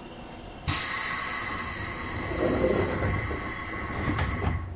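Sharp hiss of compressed air from a JR West 201 series electric train, starting suddenly about a second in, holding steady for about four seconds with a clunk near the end, then cutting off abruptly.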